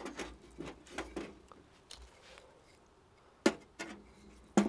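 Light knocks and clatter from hands working at a small metal wood stove, with two sharp clacks, one about three and a half seconds in and one at the end.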